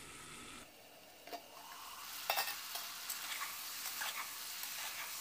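Peas, cauliflower and potato sizzling in oil in a pressure cooker while being stirred with a spatula, which scrapes and taps against the pot a few times.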